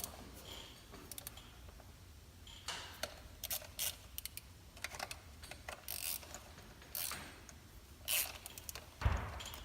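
Scattered metallic clicks and ticks of a hand tool loosening the 5 mm Allen bolts that hold down the fuel rail, with a dull knock about nine seconds in.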